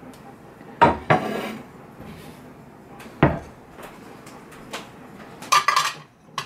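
Ceramic dishes clinking and knocking against each other as they are handled on a table: two sharp clinks about a second in, another around three seconds, and a quick cluster of clinks near the end.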